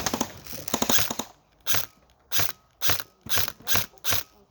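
Airsoft gun firing: a quick rattling run of shots in the first second or so, then single shots at about two a second.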